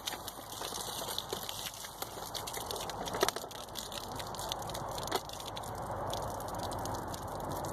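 Water pouring out of an opened water bottle being emptied as fast as possible, a steady splashing rush with scattered sharp clicks.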